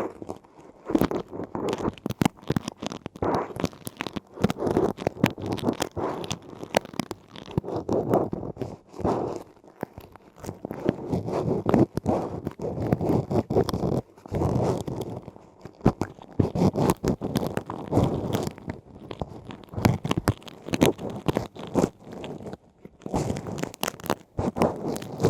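Ear-cleaning ASMR sounds on a close microphone: an ear-cleaning tool scratching and rubbing in the ear canal, making dense crunchy crackles with sharp clicks in irregular bursts, with a few brief pauses.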